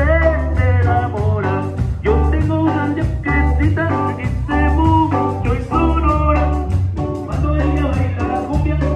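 Dance music with a singing voice over a steady beat and heavy bass.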